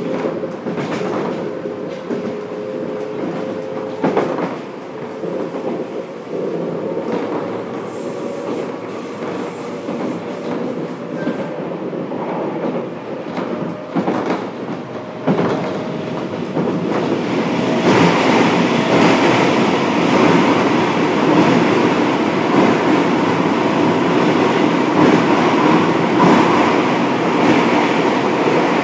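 Running noise heard inside a Fukuoka City Subway 1000N series train car as it travels between stations. There is a steady tone in the first few seconds and a few sharp knocks, and the noise grows louder and fuller about 18 seconds in.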